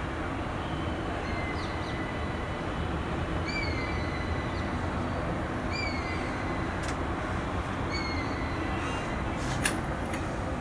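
A bird calling, a short thin rising-then-falling whistle repeated four times about two seconds apart, over a steady low rumble of distant traffic. A sharp click about a second before the end.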